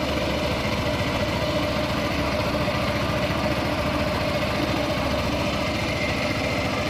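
Small 6 hp four-stroke petrol engine of a homemade outboard with a three-wheeler motorcycle gearbox, running steadily and driving the boat, with a fast, even firing beat.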